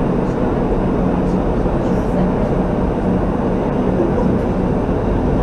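Steady running rumble heard inside a Penang Hill Railway funicular car as it climbs the track, with indistinct voices in the background.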